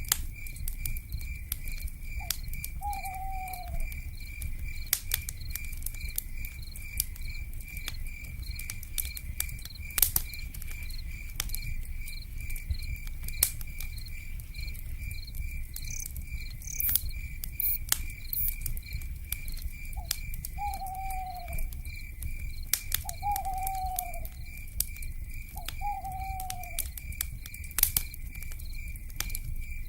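Wood fire crackling, with sharp pops over a low rumble, beneath a steady pulsing insect trill. Four short owl calls falling slightly in pitch: one about two seconds in, and three close together in the last ten seconds.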